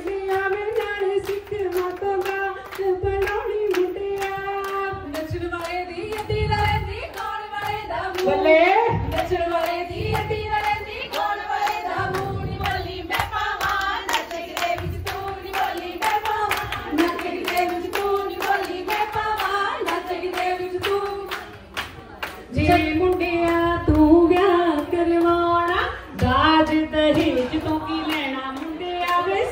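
Punjabi boliyan sung for giddha by a women's voice or group, to steady rhythmic handclapping. The singing breaks off briefly twice near the end while the clapping carries on.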